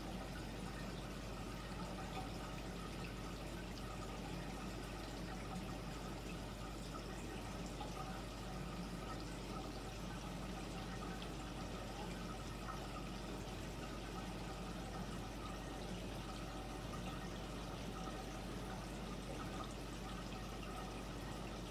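Reef aquarium's water circulation running: a steady pouring, trickling rush of water with a low, steady hum underneath.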